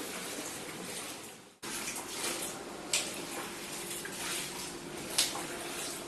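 Water from a plastic bucket being emptied into a washbasin, a rushing splash that fades out. After a cut, floodwater is scooped off a wet floor into a bucket: a quieter water noise with two short sharp splashes, about three and five seconds in, over a faint steady hum.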